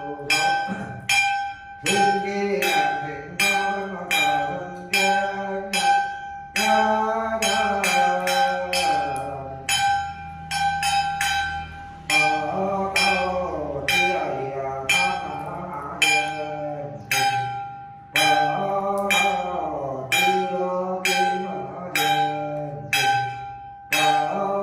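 A ritual bell struck in a steady beat, about two strikes a second, its ring carrying on between strikes, while a man chants in a sing-song voice.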